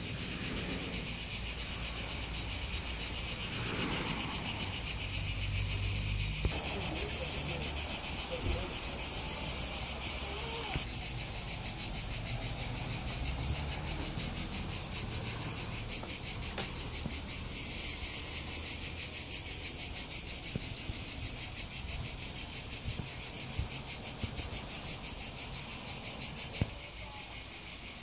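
Chorus of insects buzzing steadily, a high-pitched sound made of very fast pulses.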